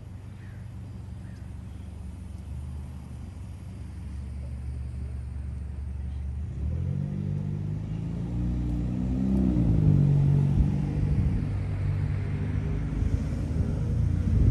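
Street traffic hum that builds into a motor vehicle's engine growing louder as it approaches, its pitch shifting and loudest about ten seconds in.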